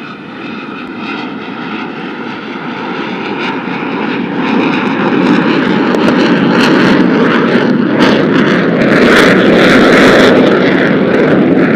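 JF-17 Thunder fighter's single turbofan engine running and growing steadily louder over the first half, then staying loud, as the jet is powered up out of a slow, high-angle-of-attack pass into a steep climb.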